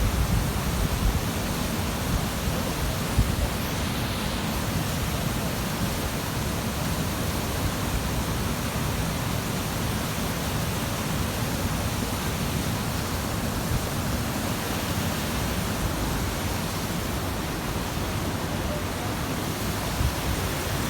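Waterfall rushing: a steady, dense roar of falling water, unchanging throughout, with some low rumble in the first few seconds.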